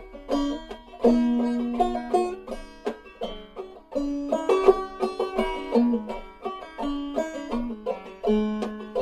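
Five-string banjo played clawhammer style in fDGCD tuning: a lively old-time fiddle tune, quick plucked notes with ringing strings and brushed strums in a steady rhythm.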